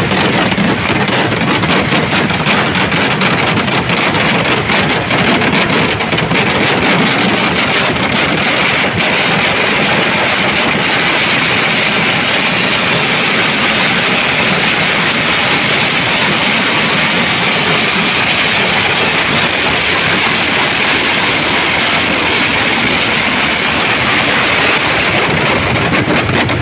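A dense, unbroken barrage of exploding firecrackers, countless small bangs running together into one loud, steady crackling din.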